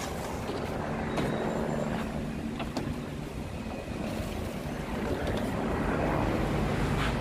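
Steady low hum of car-wash machinery running, with an even wash of noise and a few sharp clicks.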